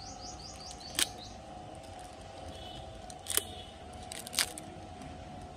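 Three sharp, short clicks, about a second in, past the middle and near the end, over a steady background hum. A quick run of falling high chirps plays at the start.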